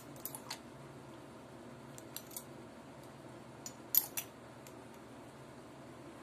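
Light clicks and taps from handling a glass dropper bottle and its dropper, a handful scattered through with the sharpest about four seconds in, over a faint steady hum.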